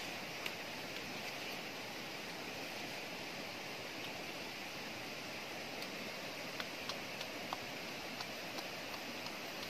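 Steady rushing of a nearby stream, with a few faint scattered knocks of a pestle in a clay bowl through the second half.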